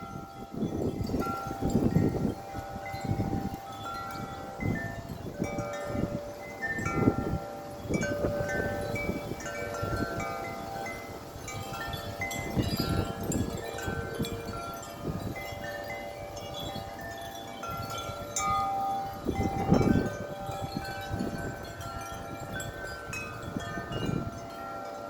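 Several wind chimes ringing in strong, gusty wind, many overlapping tones struck in quick clusters and left to ring, over the low rush of the gusts.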